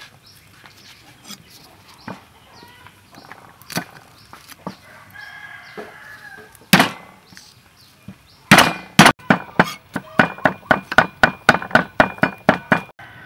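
Cleaver chopping garlic on a wooden chopping board: one hard strike about halfway through, then a fast run of blows, about four a second, through the second half. Chickens call in the background during the quieter first half.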